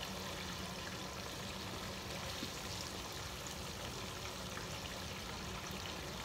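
Deep fryer of hot grease sizzling and bubbling steadily as battered chicken wings fry.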